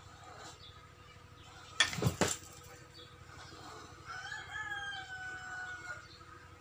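A rooster crows once in the distance, a single long call from about four seconds in that droops slightly at the end. Shortly before it, a brief clatter of three sharp knocks is the loudest sound.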